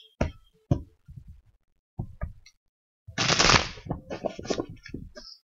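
Tarot cards being handled and shuffled: a few sharp taps of the deck, then about three seconds in a short dense rush of card noise followed by a quick run of small clicks.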